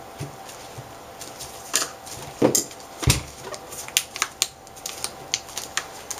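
Plastic latches of an LCD panel snapping and clicking as its metal frame is pushed back into place: a string of sharp clicks, with a louder dull thump about three seconds in.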